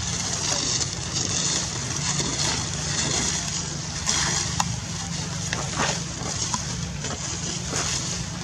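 Steady outdoor background noise with a low rumble and a hiss, broken by a few sharp clicks and rustles in the second half.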